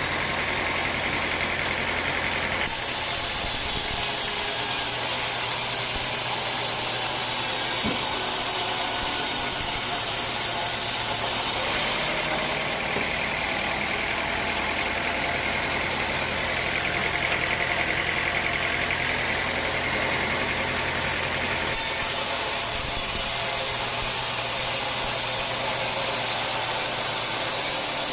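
Sawmill machinery running steadily: an engine hum under a loud, high hiss. The sound changes abruptly about three, twelve and twenty-two seconds in.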